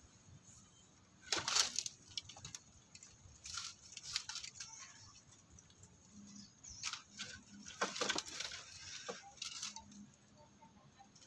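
A macaque grooming another macaque's fur: soft rustling and small crackly clicks as its fingers part and pick through the fur, coming in short clusters, the loudest about a second and a half in and several more later.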